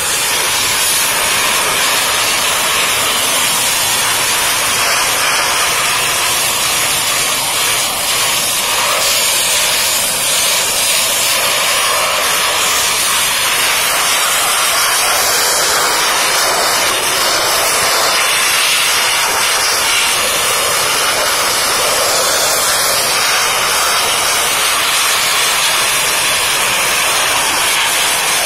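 Pressure washer spraying: a loud, steady hiss of a high-pressure water jet from the wand striking the engine bay. It starts abruptly as the trigger is pulled.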